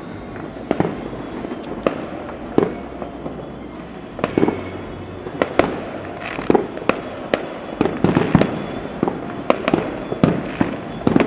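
Distant fireworks going off over a city: sharp, irregular bangs and pops that come faster and closer together in the second half.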